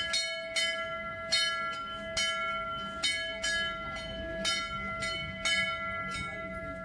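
Brass temple bell rung over and over, about ten strikes at uneven intervals of half a second to a second, each strike ringing on into the next.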